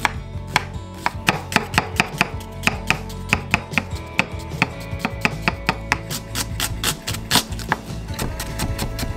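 Kitchen knife mincing onion on a wooden cutting board: a rapid, even run of blade knocks on the board, several strokes a second.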